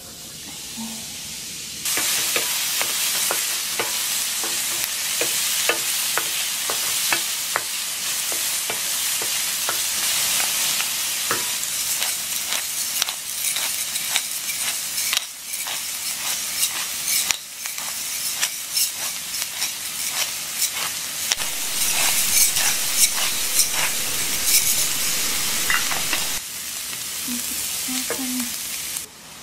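Chopped ingredients sizzling as they fry in a stainless steel pot, the sizzle starting about two seconds in, with clicks and scrapes from a wooden spoon stirring.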